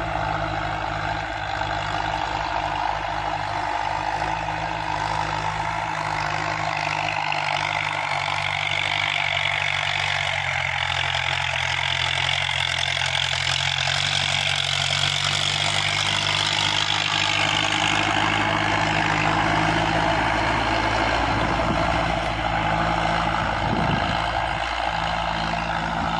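Diesel farm tractor engines working steadily under load while discing a field, with a continuous rumble of engine noise. The noise swells in the middle and fades again as one tractor and its disc harrow pass close by.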